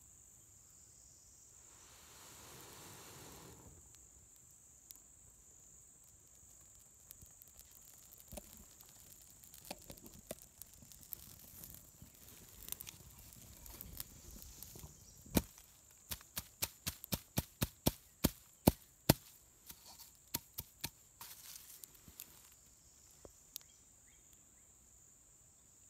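Burning tinder bundle and dry leaves crackling, with sharp pops that come about three a second at their busiest through the middle, over the steady high trill of crickets. A brief rushing sound comes about two seconds in.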